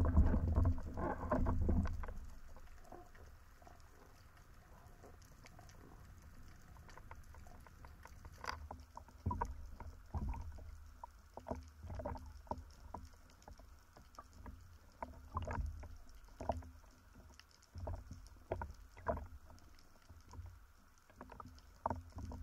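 Underwater recording of spearfishing gear: a low rush of water against the camera in the first couple of seconds, then quieter, then from about eight seconds in a run of scattered sharp clicks and knocks as the speargun, shaft and line are handled with a speared fish.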